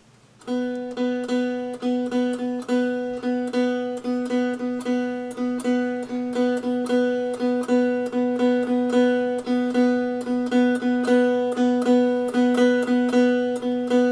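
Unfretted one-string cigar box diddley bow plucked over and over on the same open note, about three to four plucks a second, starting about half a second in. Each pluck rings with a short wobble in pitch as the string is caught again.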